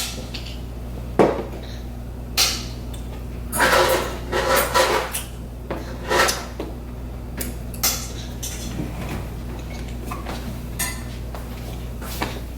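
Dishes and cutlery clinking and knocking in short irregular clatters, busiest a few seconds in, over a steady low hum.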